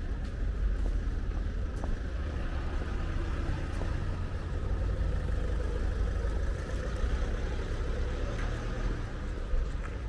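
Steady low rumble of car traffic in a car park.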